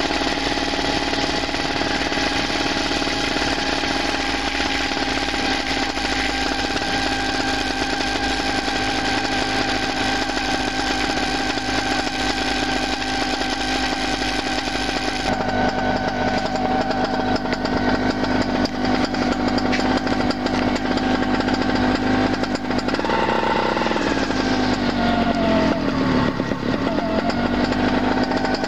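The ultralight's 16-horsepower paramotor engine running with its propeller turning, a steady buzzing drone. About halfway through the sound turns duller, and near the end the engine's pitch dips and rises several times as the throttle changes.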